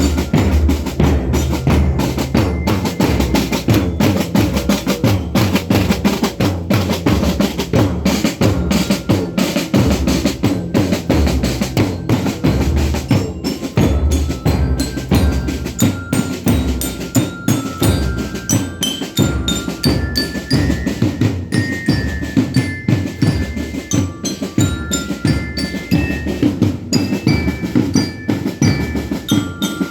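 Marching band playing: snare drums and bass drums keep up a busy rhythm with rolls, while bell lyres (glockenspiel) carry a slow melody above them.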